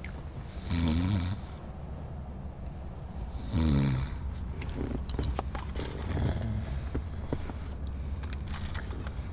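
A person snoring: two loud snores about three seconds apart, over a steady low hum, with fainter short ticks afterwards.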